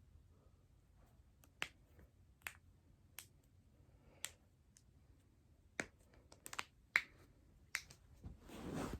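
Joints being cracked during chiropractic-style manipulation: a series of about nine short, sharp pops at irregular intervals, several close together just past the middle, the loudest about 7 s in, followed near the end by a softer rustling swell.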